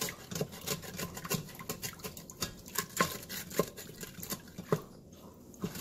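Wooden spatula stirring beef broth and scraping the bottom of a stainless steel Instant Pot inner pot, loosening the browned bits: deglazing. It makes a run of irregular scrapes and clicks that eases off near the end.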